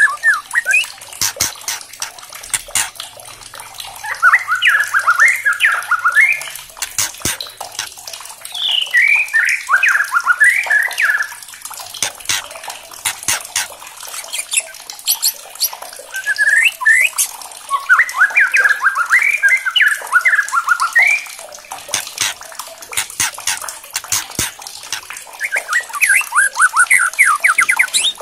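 White-rumped shama singing in four bursts of rapid, jumping whistled phrases, with sharp clicking calls between them. A steady hiss like running water runs underneath.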